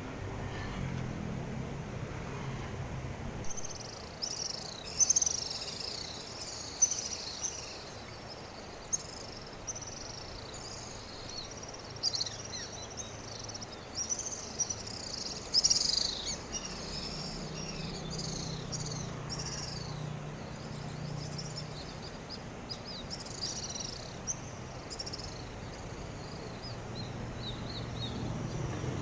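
Birds chirping: many quick, sloping high calls in a dense chatter, a few of them sharply louder. A faint low hum comes and goes beneath.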